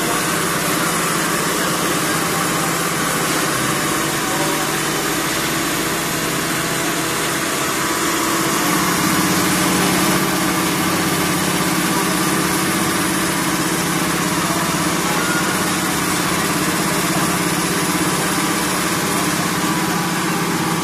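Double-stage vacuum transformer oil purifier running: its electric motors and vacuum pumps give a steady hum over a hiss. About eight seconds in the low hum shifts and grows slightly louder.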